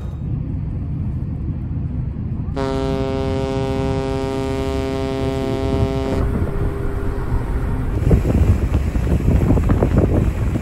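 A ship's horn sounds one long blast of about three and a half seconds over a steady low rumble of a ferry's engines and wind. Near the end the rumble grows louder and rougher.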